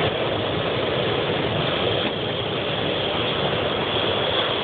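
Hot air balloon's propane burner firing close overhead: a loud, steady rushing hiss that starts abruptly.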